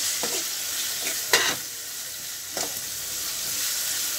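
Chopped vegetables sizzling as they fry in a metal kadhai, with a steel spoon scraping against the pan as they are stirred; a few separate scrapes, the loudest about a second and a half in.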